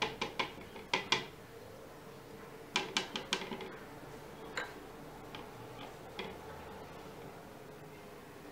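A spoon clicking and tapping against a plate as stuffing is scooped and pressed onto a pastry strip: quick clusters of light clicks at the start, about a second in and around three seconds, then a few scattered taps.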